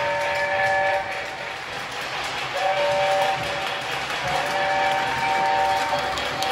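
Steam whistle from the sound system of a Lionel LionChief Hogwarts Express model locomotive, blown three times: two short blasts and a longer third. A steady running noise continues underneath.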